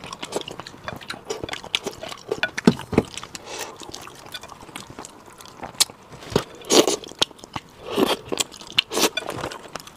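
Close-miked eating sounds: wet chewing, lip smacks and clicks as meat is sucked off braised fish bones, with a few longer, louder sucking sounds in the second half.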